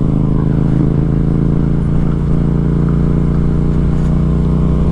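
Yamaha MT-07's parallel-twin engine running at steady, unchanging revs.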